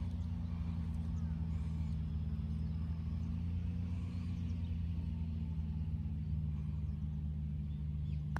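Steady low hum of an engine or motor running, made of several low tones that hold constant.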